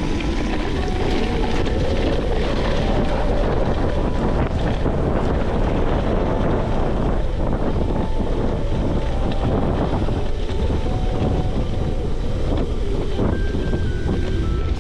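Wind buffeting the camera microphone, with the tyres of a Trek Fuel EX 8 mountain bike rolling over wet grass on a downhill ride. The rush is loud and steady.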